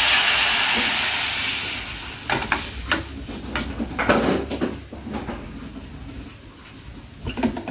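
Water poured into a pot of hot oil, sizzling loudly and dying down over the first two seconds. Then a metal ladle stirs and clinks a few times against the aluminium pot.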